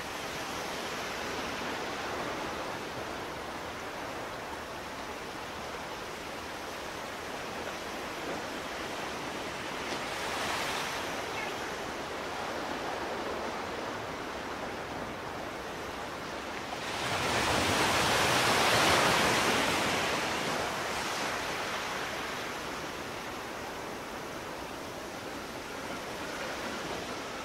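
Sea water sloshing and rushing at the surface, a steady wash with one louder surge of water about two-thirds of the way through.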